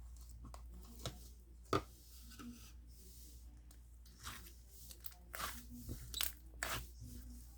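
Slime being played with by hand: irregular sharp pops and crackles, with a cluster of louder ones about five to seven seconds in.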